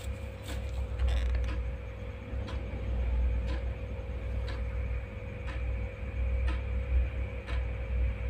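Clock ticking about once a second over a steady low hum of room noise.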